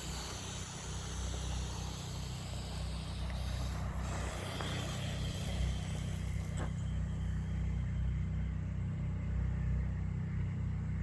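Electric motor of an RC rally car whining, its pitch rising and falling as it is driven over icy snow, over a steady low rumble. The whine fades out a little over halfway through.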